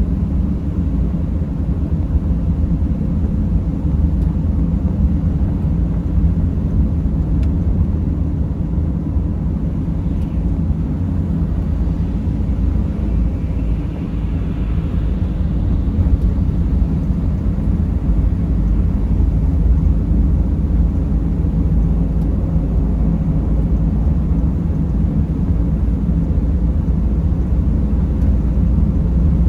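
Mercedes Sprinter van driving, a steady low rumble of engine and road noise.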